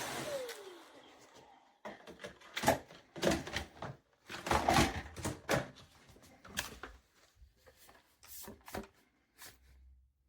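A Shark cordless stick vacuum is switched off, its motor winding down with a falling whine over about a second. Then come a series of irregular clicks and knocks of the vacuum being handled, the loudest a few seconds in.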